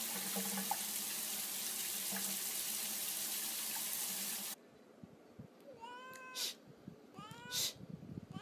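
Water running steadily with a faint meow over it, cut off suddenly about halfway through. Then a cat meows twice, each meow a rising-then-falling call ending in a short, sharp noisy burst, with a third meow starting near the end.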